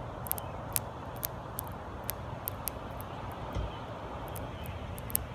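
A swamp darner dragonfly's mandibles crunching its insect prey: faint, irregular, crisp ticks several times a second. Under them runs a steady low background hum.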